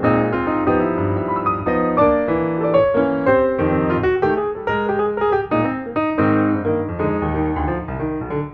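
Piano music, a steady run of notes with chords beneath.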